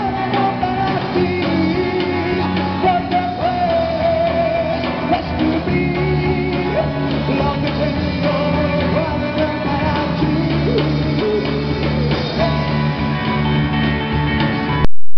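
Live rock band playing electric guitars, bass guitar and drums, with a man singing. The sound cuts off suddenly near the end.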